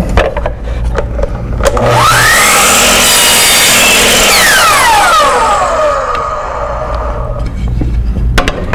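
Electric compound miter saw switched on, its motor whine rising as the blade spins up, then cutting through a thin hardwood strip. After the trigger is released the blade winds down with a falling whine. A few light knocks from handling the wood come before the cut and near the end.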